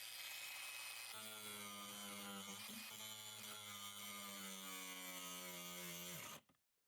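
Faint steady electrical hum, joined about a second in by a stronger pitched hum that cuts off abruptly near the end.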